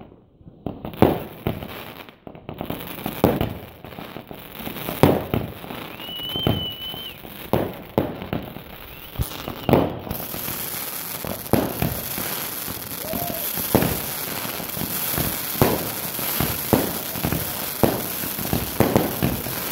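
A fireworks battery firing: a run of sharp bangs and pops, with a short high whistle about six seconds in. From about ten seconds in the shots come faster, over a steady crackling hiss.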